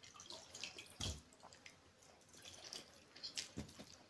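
A hand mixing and scooping watered rice and saag in a steel bowl: faint wet squelches and small clicks against the metal, with a soft thump about a second in and another near the end.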